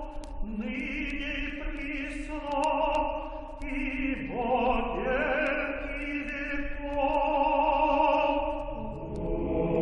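Slow sacred choral chant: voices hold long notes with vibrato, moving to new notes every second or two, with a lower voice sliding up about four seconds in.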